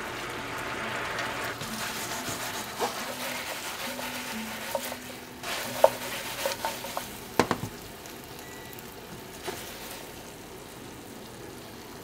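Chicken drumettes sizzling and bubbling in a sugary soy-sauce, sake and mirin sauce reducing to a glaze over high heat. Several sharp knocks of a metal utensil against the pan come as the pieces are tossed, mostly between about three and eight seconds in. The sizzle thins a little near the end.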